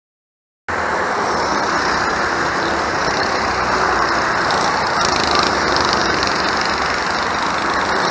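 Go-karts running on the track, a steady, dense engine noise that cuts in abruptly just under a second in.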